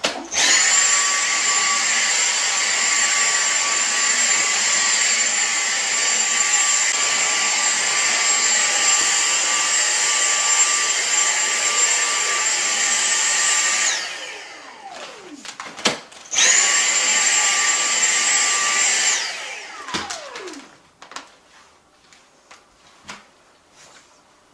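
Cordless stick vacuum cleaner running with a steady high whine for about fourteen seconds, then winding down with a falling pitch. It is switched on again for a few more seconds and winds down the same way, with a few light clicks after it.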